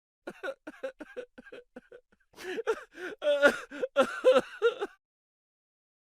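A comic vocal sound effect: a run of quick, short voiced syllables, then a louder, wavering voice that stops about five seconds in.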